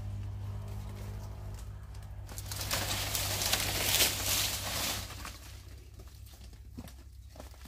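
Dry palm fronds rustling and crackling as someone pushes through them, loudest from about two and a half to five seconds in, with scattered small crackles after. A steady low hum runs underneath at the start.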